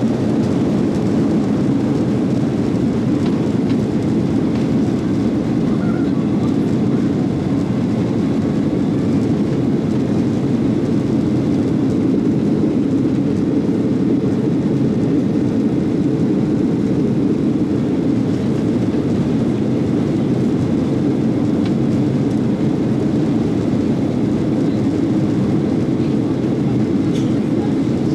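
Steady engine and airflow rumble of an airliner cabin in flight, a constant low roar.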